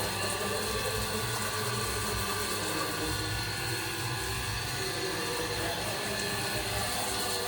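Water spraying steadily onto a motorcycle as it is washed, over a constant low hum.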